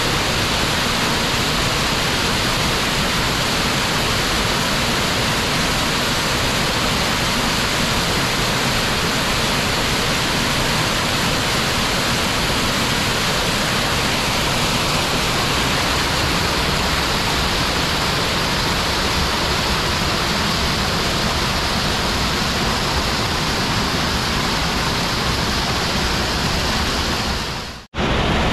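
A small waterfall on a forest stream, rushing steadily over mossy boulders. The sound drops out for a moment near the end, then resumes.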